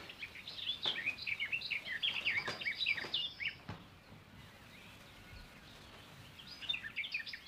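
Small birds chirping and twittering in quick, short calls, stopping for about three seconds midway and starting again near the end, with a few light knocks in the first half.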